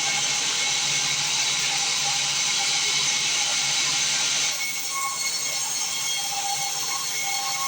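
Sawmill band saw cutting through timber, a steady high hiss that drops away about four and a half seconds in as the cut ends.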